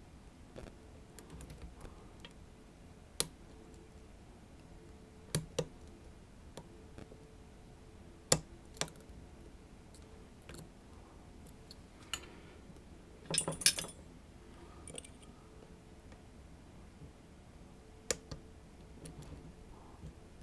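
Small metallic clicks and ticks of lock picks working the pins of a Lockman Megacross lock, scattered and irregular, with a short cluster of rattling clicks a little past the middle.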